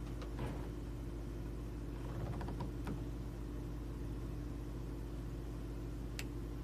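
Steady low hum of an air conditioner and studio equipment running, with a few faint clicks and one sharper tick near the end.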